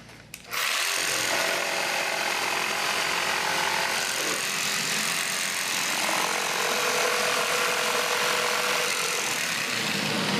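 Festool PS 300 EQ-Plus Trion jigsaw starting up about half a second in and running steadily through a cut.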